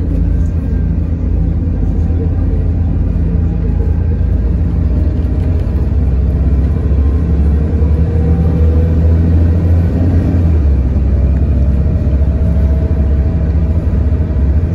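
Steady low rumble of a city bus's engine and running gear, heard from inside the passenger cabin as the bus drives along, with a faint whine that slides in pitch. The deepest part of the drone eases off about ten seconds in.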